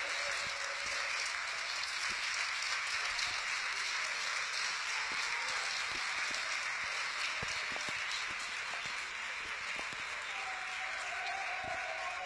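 Stadium crowd applauding steadily, many hands clapping at once.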